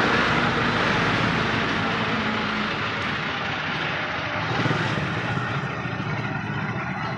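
Steady vehicle noise, an even mechanical hum and hiss with no clear rhythm.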